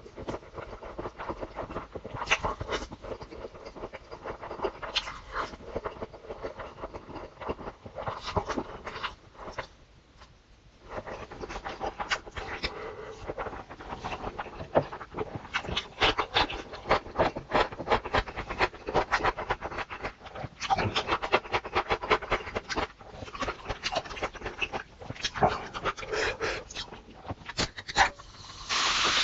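A person eating close to the microphone: dense, irregular chewing and crunching clicks, with a brief pause about ten seconds in.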